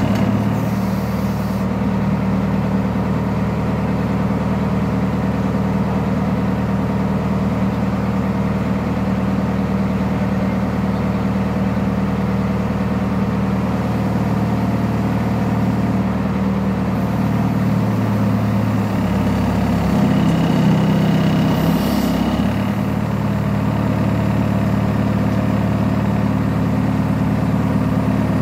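Backhoe loader's diesel engine idling steadily, its note shifting for a few seconds past the middle, with a brief clank near that point.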